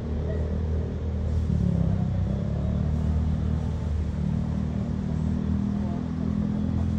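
Steady low motor rumble with a level hum.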